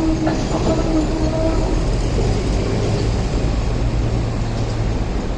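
Hong Kong double-decker electric trams rolling along street track with a steady low rumble. A steady pitched whine dies away within the first two seconds, and a sharp click comes about a third of a second in.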